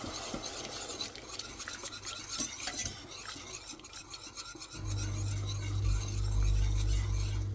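Wire whisk stirring and scraping round a saucepan as milk is worked into a cooked flour-and-olive-oil roux for béchamel. A steady low hum comes in about five seconds in.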